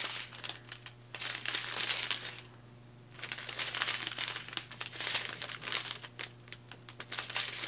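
Clear plastic zip bags of diamond painting drills crinkling as they are handled, with a brief pause about two and a half seconds in.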